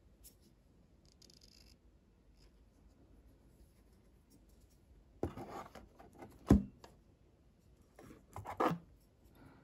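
Small glass whisky bottles handled in a cardboard gift box: a brief scraping rustle, then one sharp knock as a bottle is set down into the box, and near the end a second scrape with soft knocks as another bottle is drawn out.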